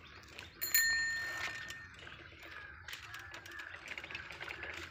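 A child's bicycle bell rung once: a single bright ding about a second in that rings on and fades over about a second.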